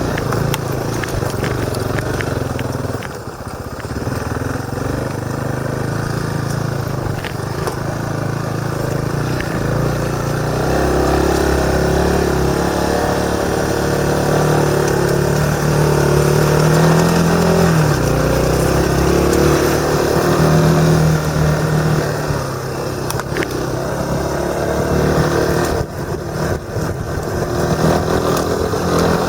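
Motorcycle engine running under way on a forest road, its note rising and falling with the throttle, with brief dips about three seconds in and near the end.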